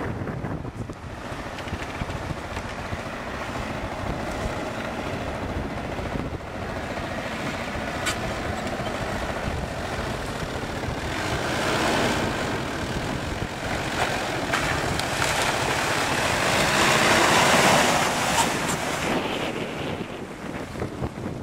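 Off-road 4x4s, among them a Jeep Cherokee, driving over sand and into muddy water: engine noise that swells and eases, with wind buffeting the microphone. It is loudest about three-quarters of the way through, as the Jeep drives into the water.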